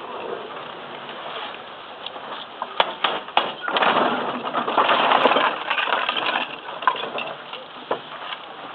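Scattered wooden and metal knocks and clinks from an antique mule-powered hay press being worked, over a murmur of background voices; the noise swells for a couple of seconds in the middle.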